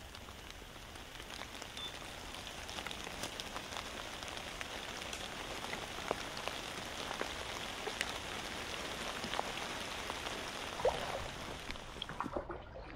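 Dry leaf litter crackling and rustling: a steady patter of many small ticks that builds a little and drops away near the end.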